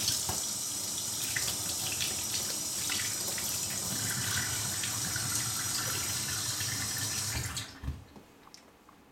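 Kitchen faucet running, its stream splashing into a stainless steel sink and over a guinea pig held beneath it. The water stops abruptly about seven and a half seconds in, followed by a soft thump and faint handling sounds.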